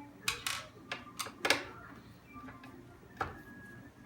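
Irregular sharp clicks and knocks of hand tools and screws against the car's dash as the trim is taken apart, about five of them, the loudest about a second and a half in.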